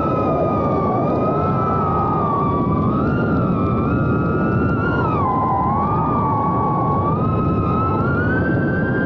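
FPV quadcopter's brushless motors and propellers whining as it flies, the pitch wavering with throttle, dipping about five seconds in and climbing again near the end. A steady rush of wind and prop wash lies under the whine.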